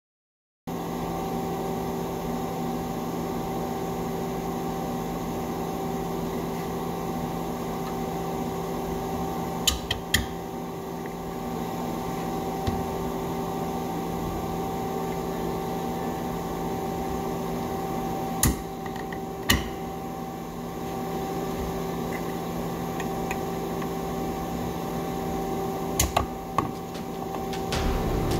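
Steady hum of a running electric motor or machine, holding several fixed pitches, with a few sharp clicks that come in pairs.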